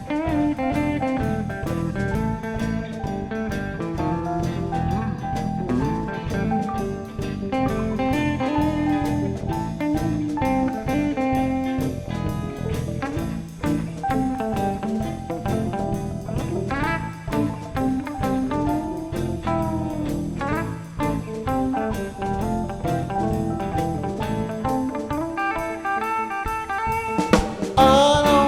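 A rockabilly band plays an instrumental break: electric guitar lead with bent notes over drum kit and bass. It gets louder near the end.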